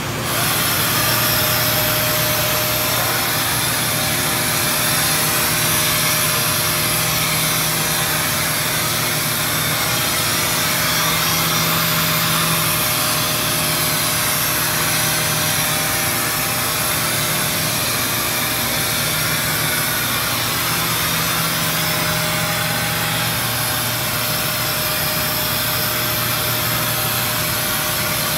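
Power sanders on an industrial robot arm running steadily as they sand a thin coat of gray primer on a cabinet door: a steady hiss over a low hum, with no pauses.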